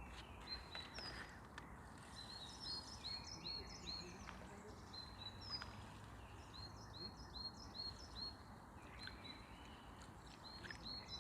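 A small bird singing: long runs of quick, high chirping notes repeated over and over, faint above a steady outdoor hiss.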